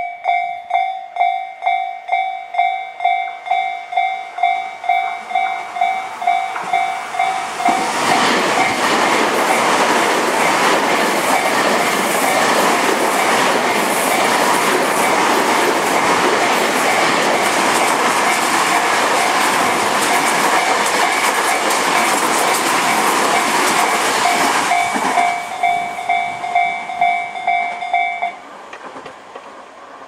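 Japanese level-crossing warning bell ringing about twice a second while Tobu 50050 series electric trains pass loudly through the crossing for about 17 seconds. After the trains clear, the bell rings on briefly and stops near the end.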